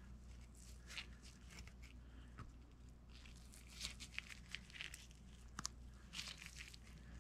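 Faint handling sounds: rubber work gloves rustling and a thin metal pick scratching and clicking against a small pump part, in scattered short bursts that cluster about four to six seconds in. A low steady hum runs underneath.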